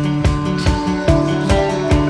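Background music: an acoustic guitar melody over a steady beat.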